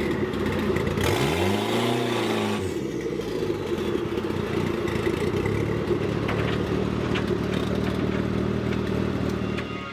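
Datsun 240Z engine running, blipped once about a second in so the pitch rises and falls back, then settling to a steady idle.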